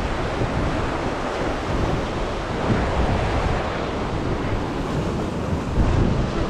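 Ocean surf surging and washing over a rock ledge, a loud, steady rush of white water, with wind buffeting the microphone.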